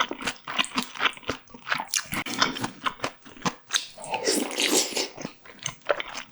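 Close-miked chewing and biting of food, with many quick crunches in an irregular rhythm. About four seconds in comes a longer rough, noisy sound lasting under a second.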